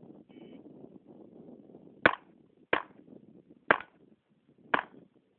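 A shot timer beeps to start the string, then a handgun fires four shots at steel targets, spread over about three seconds.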